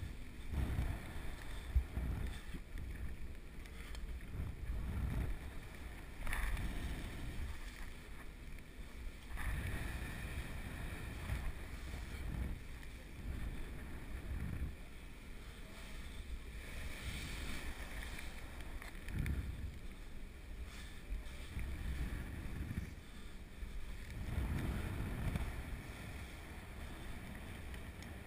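Wind gusting over a worn camera's microphone high in a sailing ship's rigging: an uneven low rumble that swells and fades every second or two, with a few faint knocks.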